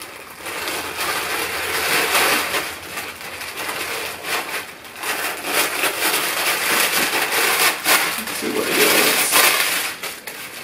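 Clear plastic poly bag crinkling and rustling in the hands as it is opened and a folded shirt is pulled out of it, loudest about two seconds in and again near the end.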